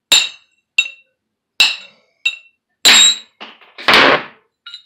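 A hammer striking the steel CV head of a Ford F-250 driveshaft to drive out a U-joint bearing cap: about five sharp, ringing metal blows in the first three seconds, then a longer, rougher clatter around four seconds in as the head comes off the shaft.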